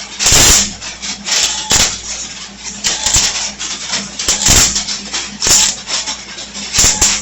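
Welding arc crackling in short, irregular bursts of a fraction of a second each, as a bead is laid in stitches to fill gaps in the joint, over a steady low hum.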